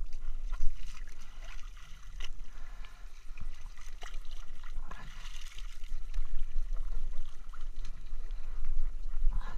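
Shallow sea water sloshing and splashing around rocks as feet in swim fins move in it, with irregular knocks and clicks.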